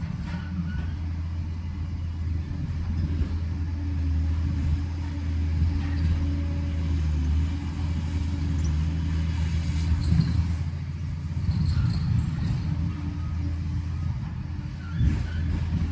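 Liebherr 746 crawler dozer's diesel engine running steadily under work, a deep even hum, with a few short clatters about two-thirds of the way through and near the end.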